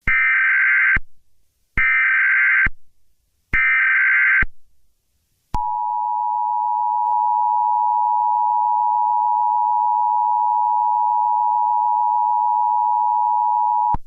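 Emergency Alert System alert tones: three short, screechy digital SAME header bursts, about a second each, followed by the EAS two-tone attention signal, a steady dissonant tone held for about eight seconds.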